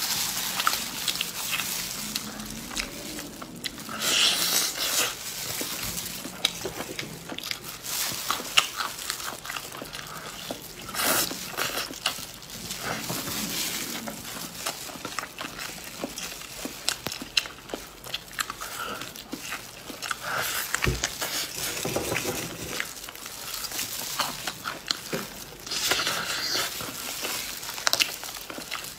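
Close-up eating sounds: biting, chewing and smacking on roast meat on the bone, with irregular wet clicks as it is torn apart and eaten.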